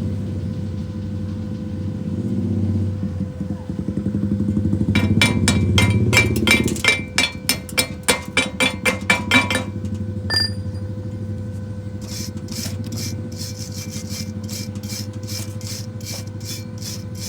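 Arc welding: a welding machine hums steadily, and two runs of quick, sharp crackles from the arc come through, the first about five seconds in and a fainter one later.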